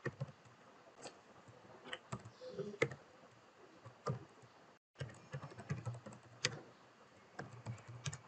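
Computer keyboard typing, faint: scattered keystrokes in short, irregular runs, with a brief cut to dead silence about five seconds in.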